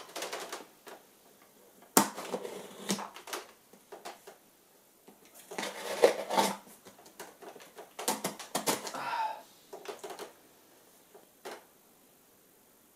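A knife slitting the packing tape on a cardboard parcel, with the cardboard scraping and crackling in irregular bursts: a sharp crack about two seconds in, the busiest stretches around six and eight to nine seconds, and a last short one near the end.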